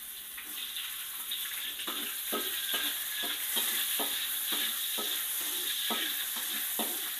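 Sliced Chinese sausage sizzling in hot oil in a wok, growing louder about a second in, while a stainless steel spatula stirs it, scraping and knocking against the wok about two to three times a second.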